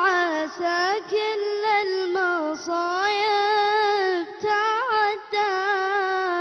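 A high solo voice singing an unaccompanied Arabic nasheed in long, ornamented held notes, with short breaths between phrases.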